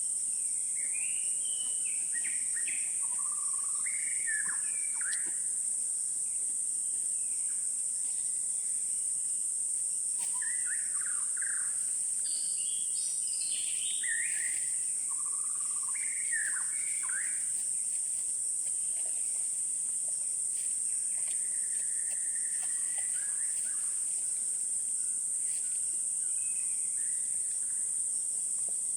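Forest ambience: a steady, high-pitched drone of insects runs throughout, with scattered bird calls and chirps over it, busiest in the first few seconds and again around the middle.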